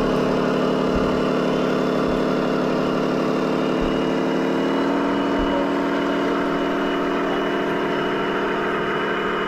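Radio-controlled model vehicles running with a steady, engine-like idle hum. The pitch rises slightly about five seconds in.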